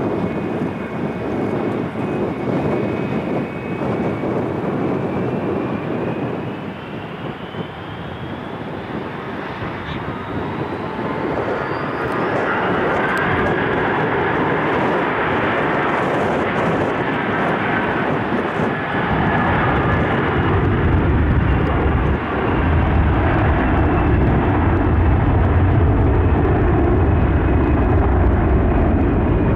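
Jet aircraft engines running loud: a thin whine rises steadily in pitch over the first dozen seconds above a broad roar. About two-thirds of the way through, a deep rumble swells in and holds.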